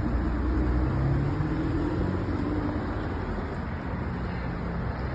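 Lexus IS300's inline-six engine running as the freshly manual-swapped car is driven, its pitch rising a little about a second in and then holding steady.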